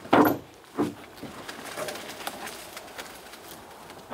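Gear being handled in the dark: a hollow knock right at the start and a smaller one about a second in, then faint clicks and rustling.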